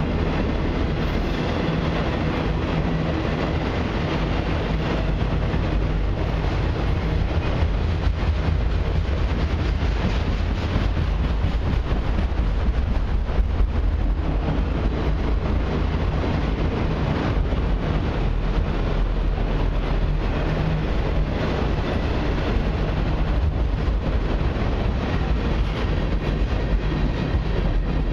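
Freight train cars rolling steadily past, autoracks and then tank cars: a constant deep rumble and rattle of steel wheels on rail, with faint repeated clicks of wheels over rail joints.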